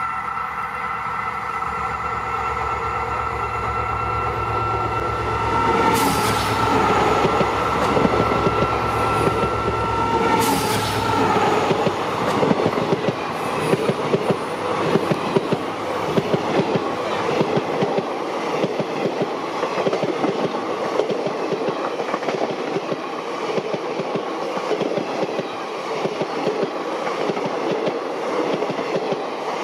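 A diesel train passing close by on Indian Railways track. For the first ten seconds or so the locomotive's engine drone is heard, with two sharp clanks. Then the carriages roll past with a steady rapid clatter of wheels on the rails.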